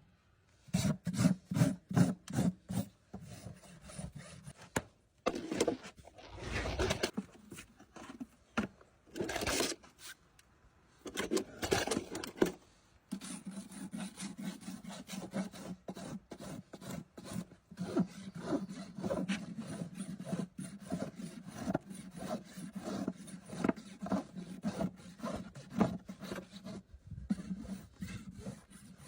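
A farrier's rasp filing a horse's hoof in quick back-and-forth strokes, a few a second, broken by a few longer passes and short pauses.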